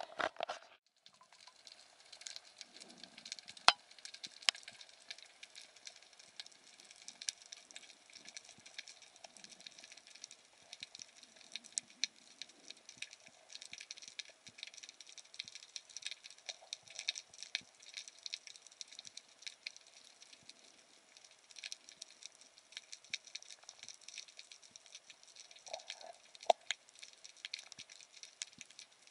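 Underwater ambience: a constant crackle of many small, irregular clicks and pops, with a short louder rush right at the start and a few sharper knocks, one about four seconds in and one near the end.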